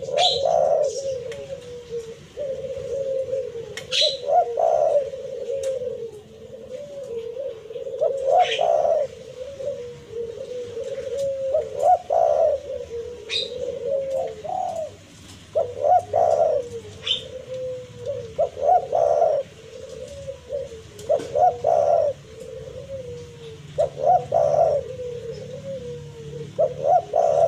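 Spotted dove cooing in repeated phrases without pause, the throaty challenge call used to bait a rival male. A short high chirp cuts in every four or five seconds through the first half or so.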